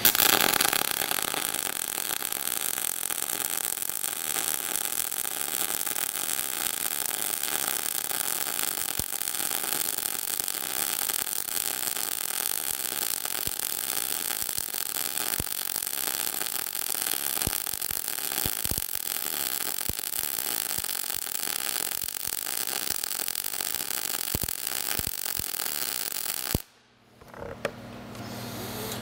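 MIG welding arc in globular transfer mode, 0.030 wire at 22 volts and 435 wire feed speed under 75/25 argon-CO2 gas, laying a fillet weld on 3/8 plate: a steady hiss with scattered sharp pops, stopping suddenly near the end.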